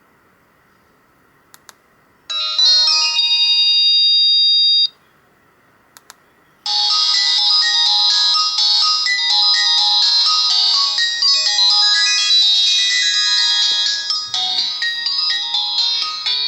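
Ringtone melodies, Alcatel 2000X tunes played on an Alcatel 1054D phone. A short tune of about two and a half seconds plays, then there is a pause, then a longer, busier melody runs on. A faint pair of clicks comes in each quiet gap before a tune.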